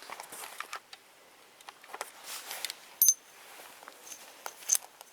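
Small metal mount parts being handled: scattered light clicks and rustles, with a sharp, briefly ringing metallic clink about three seconds in and a smaller one near the end.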